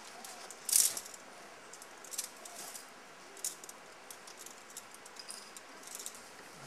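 Scattered light rattles and clicks, the loudest about a second in.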